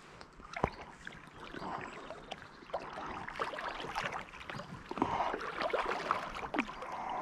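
Water splashing and sloshing around a float tube as the angler's swim fins kick through shallow river water, getting louder about three seconds in, with a couple of sharp knocks.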